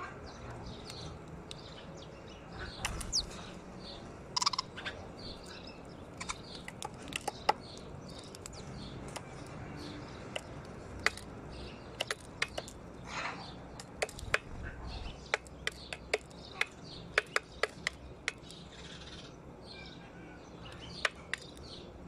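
Sparrows chirping at a feeding spot, with many sharp ticks of beaks pecking seed off the metal window sill, coming in quick runs.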